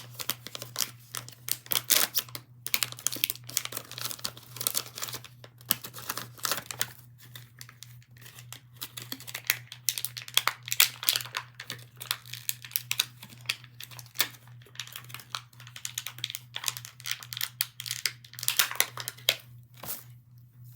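Toy packaging being torn open and crinkled by hand: a continuous run of irregular crackles and short rips, with a steady low hum underneath.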